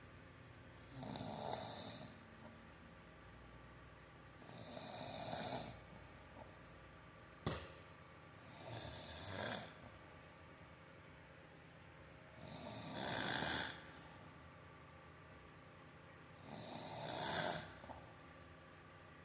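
A sleeping adult, worn out from work, snoring heavily. There are five loud, rasping snores about four seconds apart. About halfway through there is a single sharp click.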